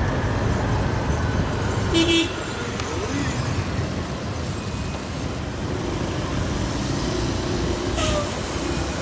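Riding a Vespa scooter through city traffic: a steady low rumble of engine, wind and road noise, with a short vehicle horn beep about two seconds in.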